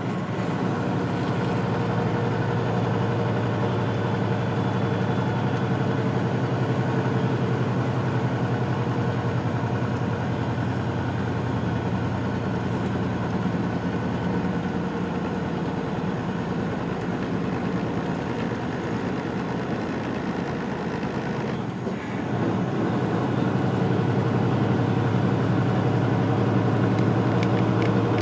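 Semi truck's diesel engine droning steadily under load on an uphill grade, heard from inside the cab. It dips briefly about three-quarters of the way through and comes back a little louder.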